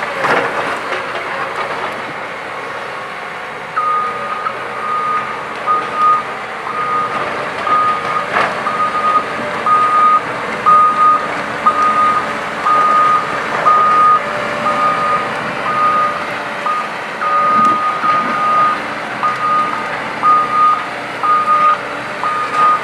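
Heavy machinery's backup alarm beeping about once a second, starting a few seconds in, over the steady running of the machinery with occasional clanks.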